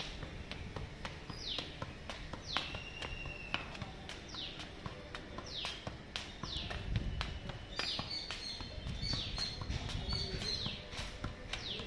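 A football being juggled, its short taps on foot and thigh coming about twice a second. A bird calls over it repeatedly with falling chirps, roughly once a second or so.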